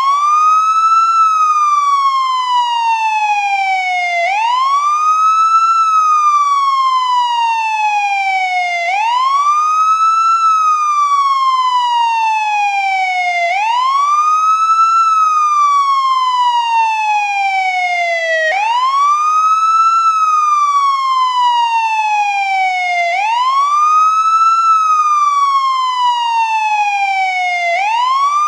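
American police car siren in wail mode, running continuously. Its tone sweeps quickly up over about a second, then glides slowly back down over three to four seconds, repeating about every four and a half seconds.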